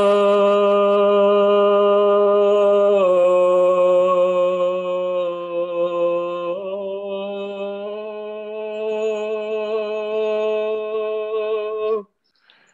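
A singer sings three long held notes of a barbershop line over a video call. The second note is lower and the third rises again, and the voice stops near the end. The coach calls it ugly.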